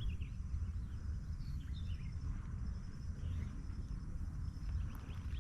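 Low, unsteady rumble, which the uploader presents as Mount Merapi rumbling before an eruption. Over it, birds chirp now and then and an insect keeps up a steady high trill.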